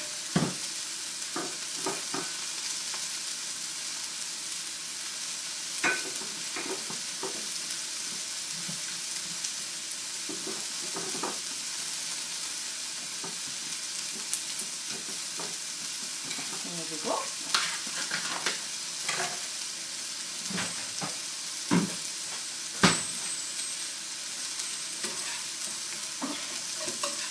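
Square sausages and chopped onions sizzling in frying pans, a steady hiss, with scattered light scrapes and clicks as butter is spread on a bread roll and the sausages are turned; the sharpest click comes about four seconds before the end.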